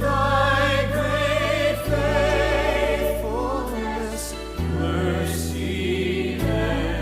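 Music: a slow song with voices singing held notes with vibrato, choir-like, over sustained low notes that change about every two seconds.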